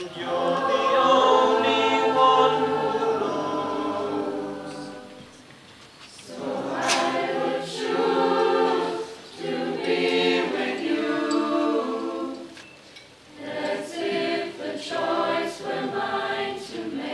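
Mixed-voice school chamber choir singing in held chords; the phrase dies away about five seconds in, then the choir comes in again and sings on in swelling phrases.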